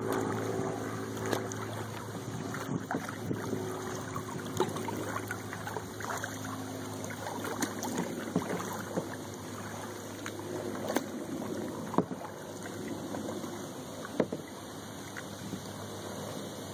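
Kayak paddling on calm water: paddle blades dipping and dripping, with scattered sharp knocks.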